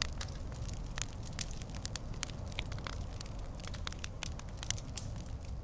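Campfire crackling: irregular sharp pops and snaps, several a second, over a low steady rumble.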